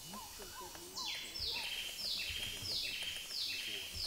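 Forest animal calls: soft repeated chirps, then from about a second in a loud, raspy buzzing call that pulses about three times a second.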